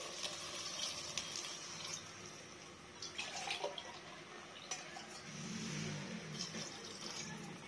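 Water poured from a tumbler into a pressure cooker onto sautéed basmati rice, a faint splashing pour.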